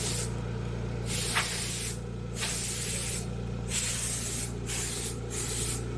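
Compressed-air blow gun hissing in about five short bursts with brief pauses between them, blowing off dust and debris, over a steady low hum.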